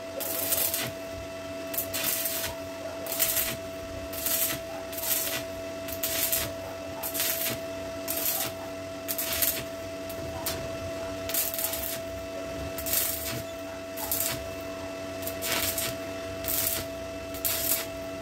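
Stick welding arc of a Truper SOIN-110/130 welder burning a 1/8-inch 6013 rod on thin 14-gauge steel sheet: a steady crackling hiss broken by louder sizzling spurts about once or twice a second, with a steady tone underneath.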